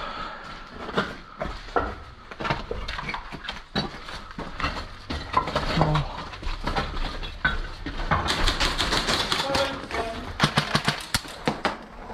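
Airsoft guns firing: scattered sharp cracks, then a dense rapid run of them from about eight seconds in.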